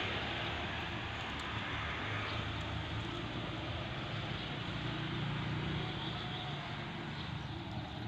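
Steady road traffic noise, with a vehicle's low engine hum growing louder about five seconds in.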